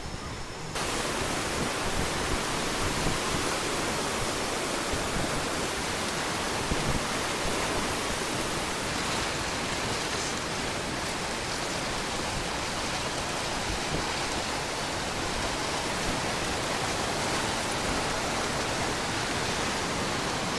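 Steady rushing noise of tsunami floodwater surging through a town full of debris, cutting in abruptly about a second in and holding even throughout.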